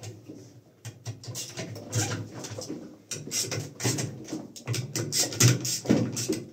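Hands and a metal hand tool working at a washing machine's door opening and rubber door seal: an irregular run of scrapes, clicks and rubbing.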